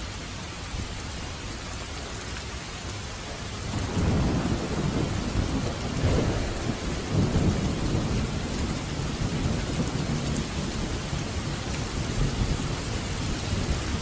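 Steady rain hiss, joined about four seconds in by a long, low roll of thunder that swells and rumbles on.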